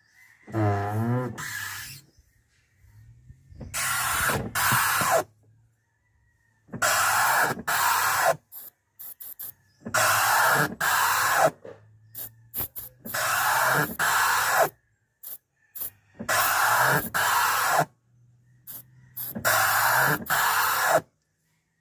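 Ford Everest windscreen wipers sweeping back and forth, each pass about every three seconds giving a rasping, rubbing squeak in two parts, with a wavering squeal about a second in. The squeak is put down to the wiper's rotor.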